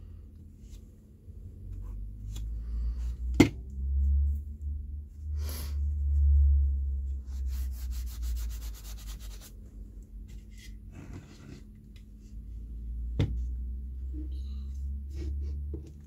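A sponge wiping excess wood glue off a clamped wooden board, a couple of seconds of scratchy rubbing strokes across the wood about halfway through. Sharp knocks from handling the clamp and wood come before and after, over a low rumble.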